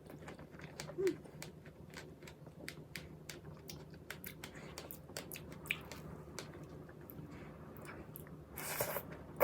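Close-miked chewing and biting of strawberries with whipped cream: many small irregular clicks and crunches, with a short rush of noise near the end.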